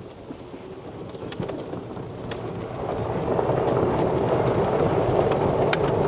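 Electric golf cart driving closer over gravel, its tyres crunching and growing steadily louder as it nears.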